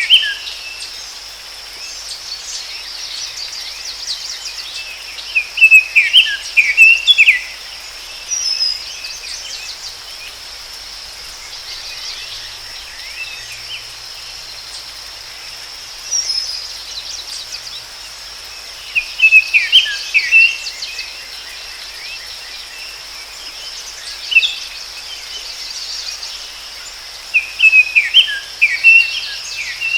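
Forest ambience: a songbird sings short bursts of quick, falling chirped notes, repeating every several seconds, over a steady high-pitched insect drone and a constant soft hiss.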